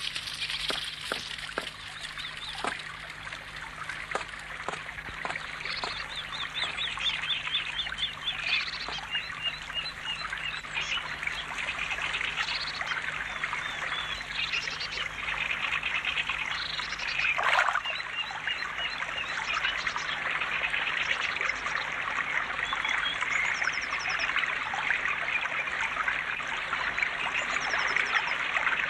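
A small river running over stones with a steady babble of water, and small birds singing short trilled phrases now and then above it. There is one brief louder swish of water about two-thirds of the way through.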